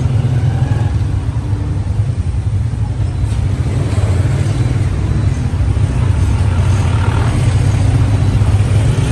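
Motor vehicle riding slowly along a street: a loud, steady low rumble.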